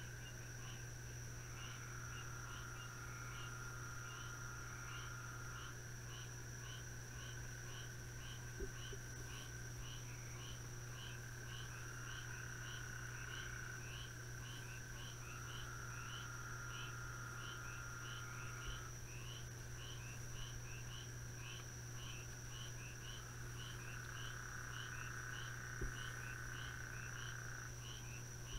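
Faint chorus of frogs and insects: a steady high-pitched insect drone, a short chirping call repeated about twice a second, and lower trills that come and go for a few seconds at a time. A low steady hum runs underneath, with two faint clicks.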